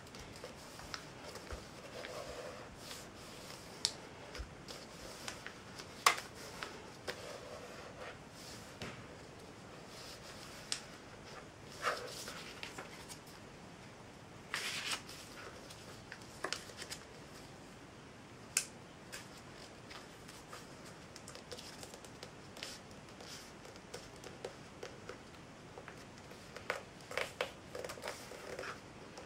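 A sheet of paper being folded and creased by hand on a table: scattered short rustles and crackles of paper, the sharpest about six seconds in and a quick run of them near the end.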